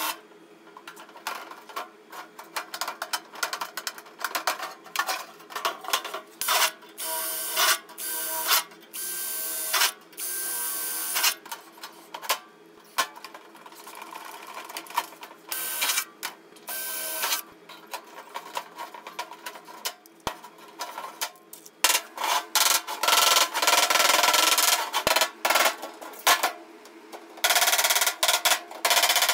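Cordless drill running in short runs and longer stretches against thin sheet metal, between sharp clicks and clanks of hand tools on the tin.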